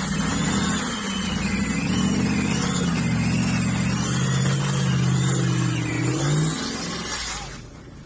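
Modified Maruti Suzuki Gypsy 4x4 engine revving hard under load as it climbs a steep muddy rock step, its pitch rising and falling with the throttle. The engine sound dies down near the end.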